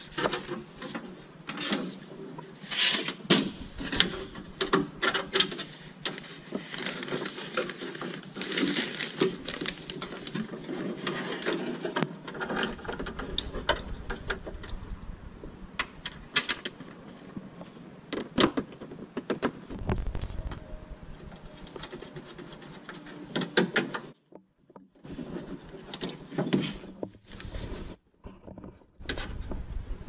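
Hands working inside a 1999–2005 Toyota Yaris door shell to remove the power door lock: irregular clicks, knocks and scrapes of the metal linkage rods, plastic clips and sheet-metal door panel being handled, with a short break about two-thirds of the way in.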